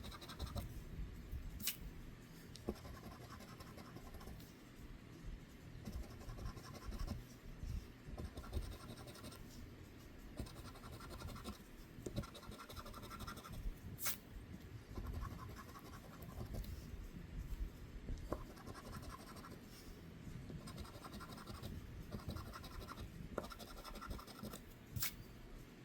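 A scratch-off lottery ticket being scratched: repeated short scraping strokes in quick runs as the coating comes off, with three sharp clicks along the way.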